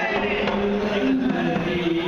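Male voices singing a slow melody of long held notes that step from one pitch to the next, with no drumming.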